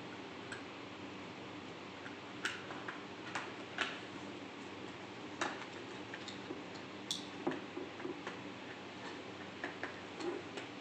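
Scattered light clicks and taps of small hard objects being handled, irregular and a few seconds apart, over a steady low hum.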